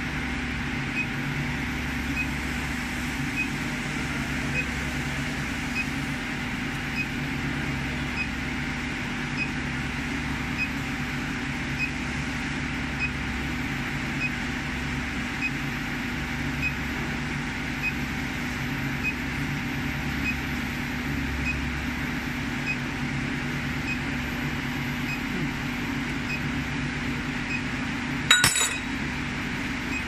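Handheld induction brazing heater running steadily while it heats a copper tube joint to brazing temperature: a steady electrical hum with a thin high whine and a faint tick a little more than once a second. Near the end there is a short, sharp metallic clink.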